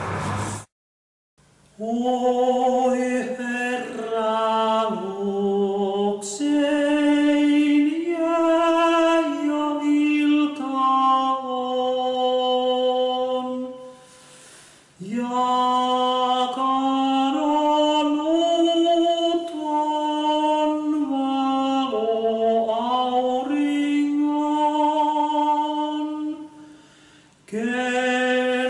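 A man singing a Finnish hymn (virsi) solo and unaccompanied, in slow, long-held phrases, with a breath pause about halfway through and another near the end.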